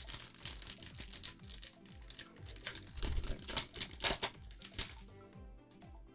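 Foil Pokémon booster pack wrapper crinkling and tearing as it is opened, in a run of sharp crackles that are busiest in the second half, over background music.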